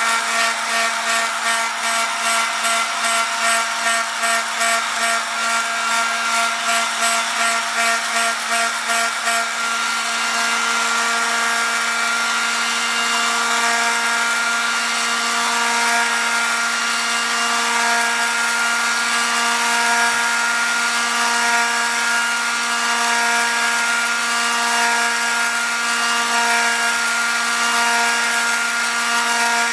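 Electric hot-air blower running with a steady motor-and-fan hum, blowing heat onto the rear glass's adhesive seal to set it. For roughly the first ten seconds the sound pulses about twice a second, then it runs evenly.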